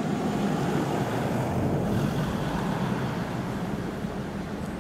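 Class 66 diesel locomotive, with its EMD two-stroke V12 engine, approaching from a distance: a low, steady engine drone mixed with wind rumble on the microphone.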